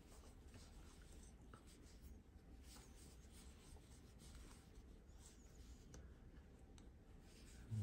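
Near silence with the faint rubbing and scratching of thick yarn drawn over a metal crochet hook as stitches are worked, with a few soft ticks.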